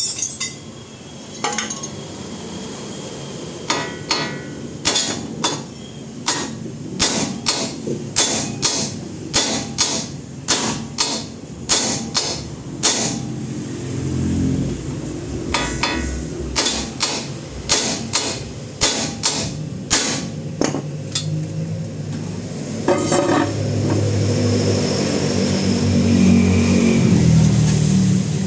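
Repeated hammer blows on metal, about two a second, in a long run of sharp strikes. In the second half a low steady hum joins them and grows louder near the end.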